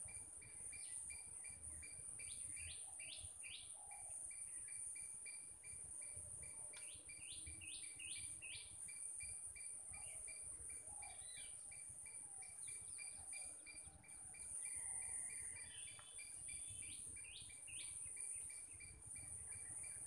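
Birds calling in runs of three or four quick falling notes, several times. Behind them runs a steady high insect drone and an evenly pulsing insect chirp.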